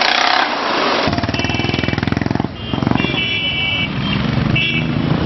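Royal Enfield single-cylinder motorcycle engine running close by, its rapid firing pulses coming in steadily from about a second in. Several short high-pitched tones sound over it, and a rushing noise comes before the engine.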